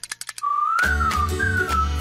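Cartoon soundtrack music: a quick rattle of clicks, then a whistled tune that wavers up and down over a pulsing bass beat.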